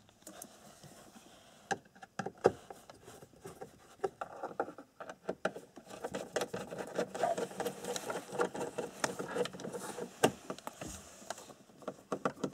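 Phillips screwdriver and hands working at the plastic dashboard, unscrewing the gauge cluster's retaining screws: small irregular clicks, taps and scrapes, busier in the second half.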